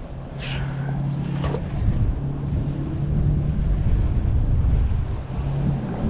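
A low, steady engine hum with wind buffeting the microphone. Two short falling squeals come in the first two seconds.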